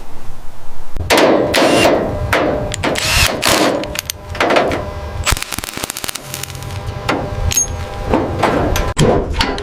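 Workshop tool noise: repeated short bursts of a power tool, with sharp knocks and clicks between them.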